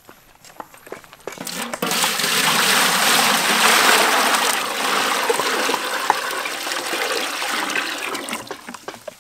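Water poured from a plastic bucket into a large aluminium cooking pot that already holds water: a steady splashing gush that starts about a second and a half in, runs for about seven seconds and thins out near the end.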